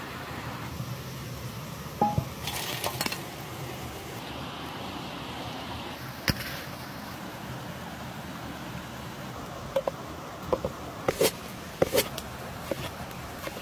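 Knife slicing through a tomato and tapping on a wooden cutting board several times near the end, after a clank about two seconds in and a single knock in the middle, over a steady background rush.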